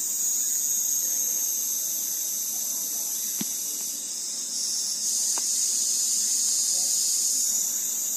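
Steady high-pitched shrilling of an insect chorus, with a few faint taps about three and a half and five and a half seconds in.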